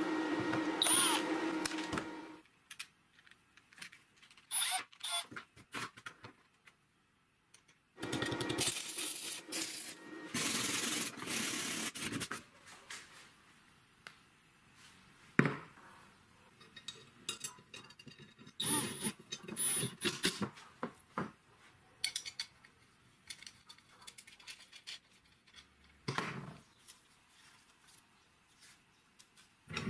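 Bench handling of metal hardware: short clicks, clinks and knocks as a rubber-lined metal pipe clamp and its screws are worked by hand, with a sharp knock about fifteen seconds in. A steady hum fades out about two seconds in, and a few seconds of loud noise come around eight to twelve seconds in.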